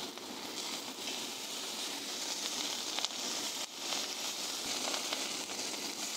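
Beef sizzling on a hot grill pan: a steady hiss with small pops and crackles.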